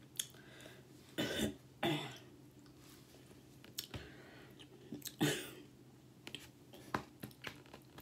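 A woman clearing her throat: two short bursts about a second in and a third around five seconds, with a few faint clicks between.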